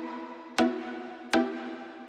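Background electronic music with a steady beat: a pitched, chord-like hit about every three-quarters of a second, each fading before the next.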